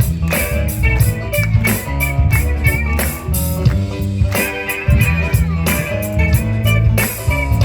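Live band playing an instrumental passage of a romantic ballad: electric guitar melody over bass and a steady drum-kit beat.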